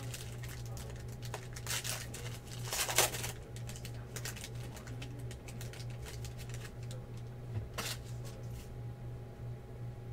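Foil trading-card pack wrappers crinkling and rustling as packs are handled, in short scattered crackles, the loudest about three seconds in, over a steady low electrical hum.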